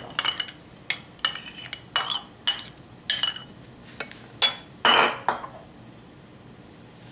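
A metal spoon clinking and scraping against a ceramic bowl while stirring a dry popped-amaranth mix: a run of sharp ringing clinks about twice a second, with a louder scrape about five seconds in, after which the clinking stops.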